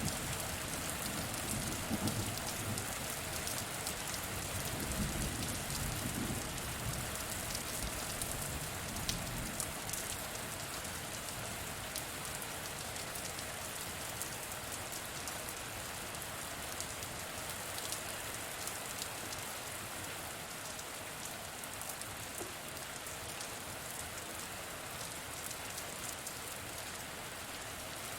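Steady rain falling on a surface, with scattered sharper drop ticks. A low rumble of thunder dies away over the first several seconds.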